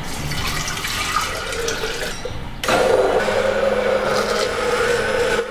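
Water poured from a glass jug into a glass jar of rolled oats, splashing as it fills. About two and a half seconds in, a 600-watt single-speed immersion blender switches on suddenly and runs at a steady pitch, blending the oats and water into oat milk.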